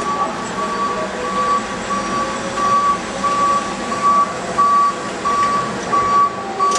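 Forklift warning beeper sounding a steady, evenly spaced beep, about one and a half beeps a second, over the running noise of the forklift.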